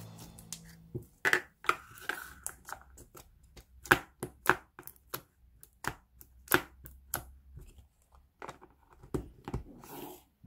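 Glossy black slime being pressed and poked with fingertips in a small plastic tub, giving an irregular string of sharp pops and clicks, a few a second, from about a second in until near the end.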